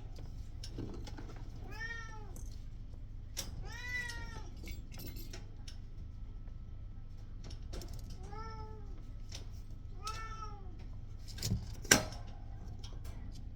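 Kitten meowing four times, short high-pitched meows that rise and fall, with scattered small clicks and a sharp knock near the end.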